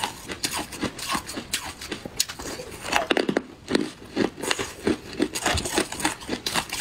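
Ice being chewed and crunched close to the microphone: a dense, irregular run of crisp crunches.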